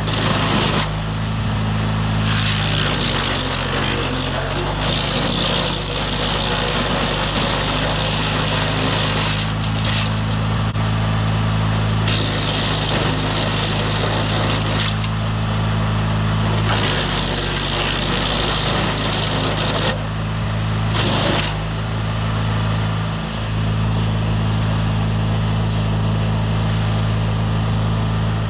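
DR wood chipper's engine running steadily, with repeated spells of crunching hiss as branches are fed in and chipped. The engine pitch sags under the load a few seconds in.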